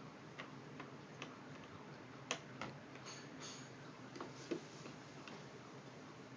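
Small spoons clicking and tapping against a yoghurt cup as a toddler eats: a string of light, irregular clicks, a few of them louder about two and a half seconds in and again past four seconds.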